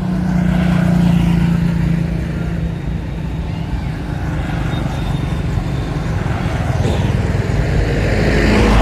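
A motor vehicle's engine running, a steady low rumble with a held tone for the first couple of seconds, growing louder near the end.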